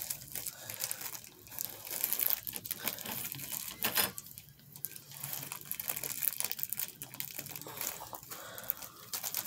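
Thin clear plastic bag crinkling and rustling as it is handled and opened, with irregular crackles and a sharper crackle about four seconds in.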